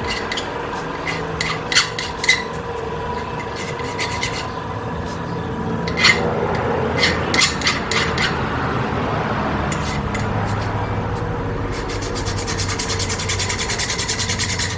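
Small aluminum bar being rubbed back and forth over a hand file to smooth its edges: a steady rasping scrape with scattered clicks, the strokes turning quick and rapid near the end.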